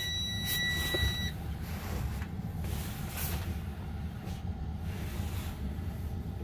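Freightliner semi-truck dashboard warning buzzer at key-on with the engine off, sounding one steady high tone that stops about a second in. A low steady rumble continues underneath.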